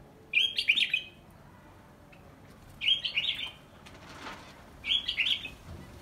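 Zebra finches calling: three short bursts of quick high chirps, about two seconds apart.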